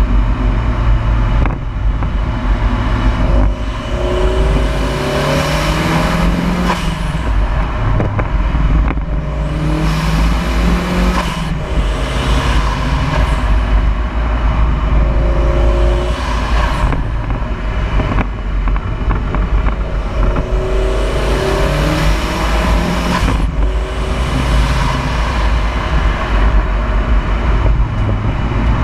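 Turbocharged Mazda Miata's four-cylinder engine pulling up through the revs and easing off several times while it drives a winding road, with a rising engine tone and a rush of hiss on each pull. Heavy wind rumble on the grill-mounted camera's microphone lies under it all.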